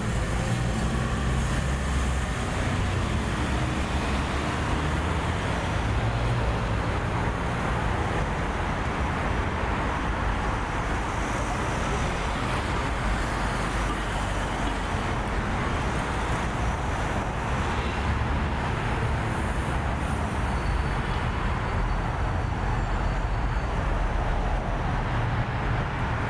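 Steady road traffic on a busy city street: cars and vans running past, engines and tyres on the road.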